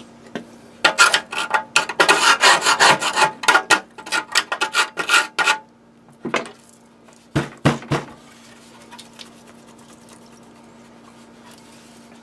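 Quick scraping and rubbing strokes on the inside of an old, rusty Cisco router's metal case as dust and corrosion are cleaned out, lasting about five seconds, then three short knocks.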